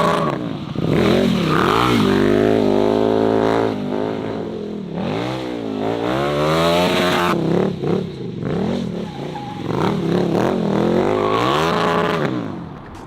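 KTM 1290 Super Duke R's big V-twin engine, breathing through an Austin Racing full titanium exhaust, revving hard over and over: its pitch rises and falls many times, then drops away near the end.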